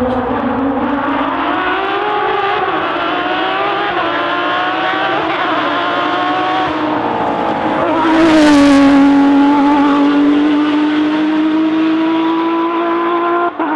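A rally car's engine at high revs, its pitch climbing and dropping with gear changes. It is loudest as the car passes close about halfway through, then holds a steady high note as it drives away.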